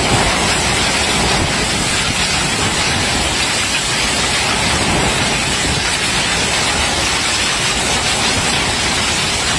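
Heavy storm rain driven by strong wind: a steady, loud rush with no breaks.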